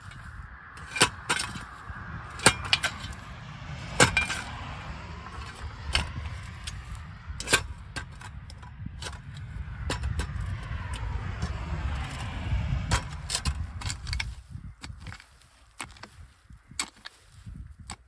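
A shovel digging into the soil around a pipe: irregular sharp strikes and scrapes, several a few seconds apart. A low rumble builds in the middle and dies away near the end.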